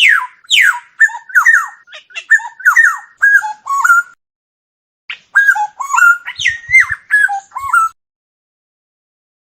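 Oriole singing: two quick falling whistles, then a run of short whistled notes that bend up and down. It comes in two phrases of about four and three seconds, with a second of dead silence between them.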